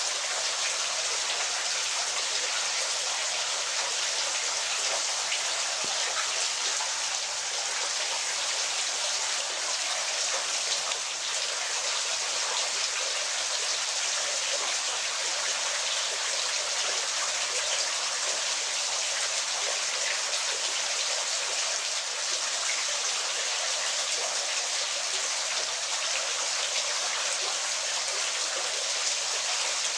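Falling water: a steady, unbroken hiss-like rush with little deep rumble.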